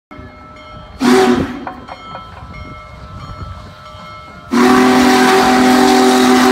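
Steam whistle of Union Pacific Big Boy No. 4014, blown as the locomotive departs: one short blast about a second in, then a long blast of the same multi-note chord with steam hiss starting a little past the middle.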